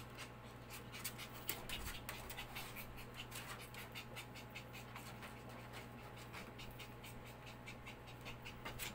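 Maltese puppy panting in quick, even breaths, faint.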